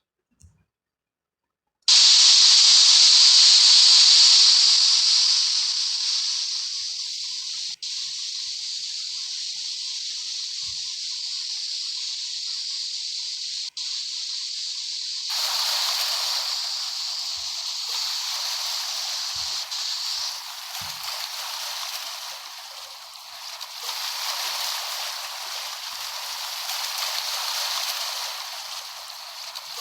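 Rushing water, a steady hiss of flowing water with no low rumble. It starts abruptly about two seconds in, drops out briefly twice, and changes in tone about halfway through.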